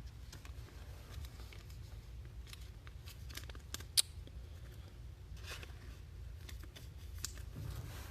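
Trading cards being handled: soft scrapes and light clicks of cards and their plastic holders being slid and set down, with one sharper click about four seconds in.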